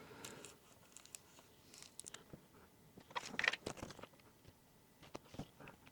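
Faint crinkling and small clicks of adhesive tape strips and their plastic backing film being handled and pressed into place, with a busier cluster of rustles about three seconds in.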